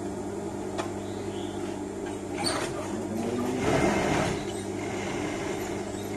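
Industrial sewing machine's motor humming steadily while fabric is handled at the needle. Short noisy bursts come about two and a half and four seconds in.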